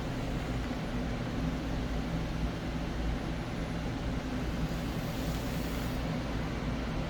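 Furnace running: a steady mechanical hum with a low drone and an even rush of air noise over it.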